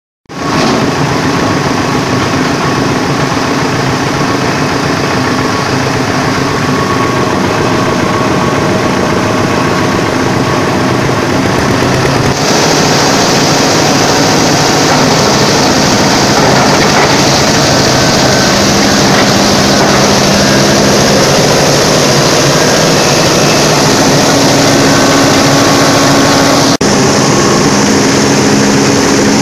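Engine-driven chopper machine running steadily while being fed corn cobs for grinding. The dense mechanical noise turns harsher and brighter about twelve seconds in.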